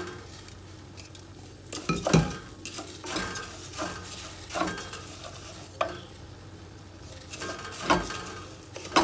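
Wooden spoon stirring raw rice through melted butter in a clay cazuela, scraping and knocking against the pot about once a second, with a steady sizzle underneath. The rice is being sautéed in the butter before the liquid goes in, kept moving so it does not brown.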